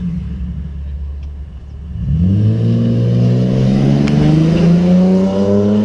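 Car engine with a spaced-out (deliberately leaking) muffler: a low rumble, then from about two seconds in it accelerates, its pitch climbing steadily.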